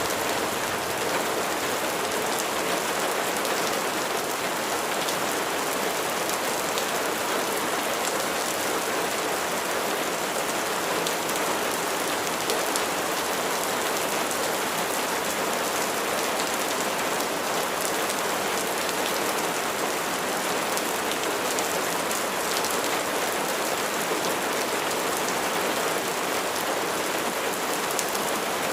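Steady rain falling and pattering on surfaces, an even hiss with fine scattered drop ticks.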